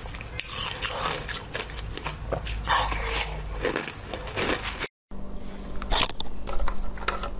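Crushed ice being bitten and chewed, with quick, crisp crunches close to the mouth. The sound cuts out briefly a little under five seconds in, then sharp crunching bites and clicks follow.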